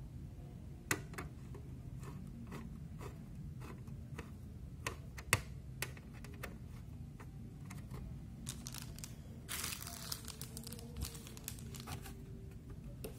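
Handling of a small DVR's sheet-metal casing: scattered light clicks and metal taps as the cover and unit are fitted and turned over, with a short rustling scrape about ten seconds in.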